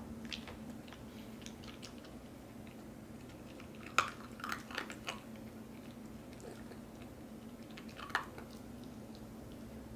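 Bernese mountain dog puppy eating small dry dog-food pieces from a hand, chewing and crunching them. Sharp crunches come about four seconds in, a few more follow over the next second, and another comes about eight seconds in.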